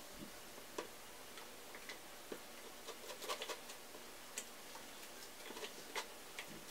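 Faint, irregular clicks and taps of a stirrer working glue-and-detergent slime in a plastic bowl, with a small cluster of clicks about three seconds in.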